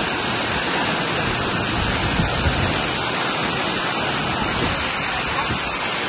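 Waterfall: falling water rushing at a steady, dense level.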